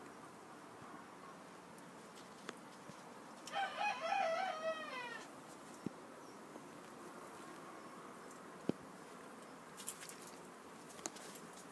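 A rooster crows once, about three and a half seconds in: one call of about a second and a half that ends in a falling tail. A few faint clicks come near the end.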